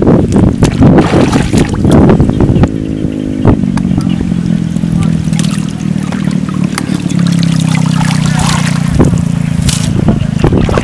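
Shallow muddy water splashing and trickling as hands work in it and legs wade through it. A steady low hum comes in after a couple of seconds and stops about nine seconds in.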